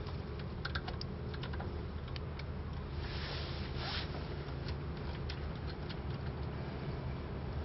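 Light, irregular clicks and taps of a hand tool working the motorcycle's rear chain adjuster bolts, with two short scrapes about three and four seconds in, over a steady low hum.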